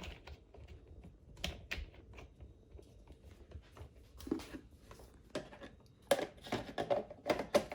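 Light clicks and taps of a handheld paint sprayer's plastic parts being handled and fitted back together, scattered at first and coming thicker over the last second or two.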